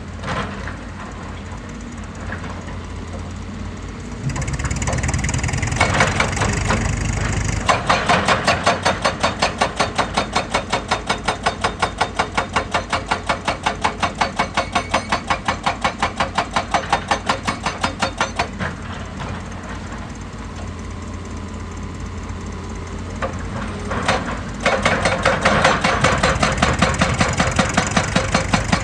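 Heavy diesel machinery running steadily, with a rapid, even hammering of about four or five strikes a second that starts about eight seconds in, stops about ten seconds later, and starts again near the end.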